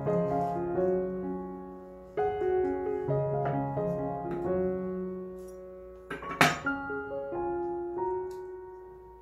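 Background piano music playing a slow melody in phrases, with a single sharp knock about six seconds in.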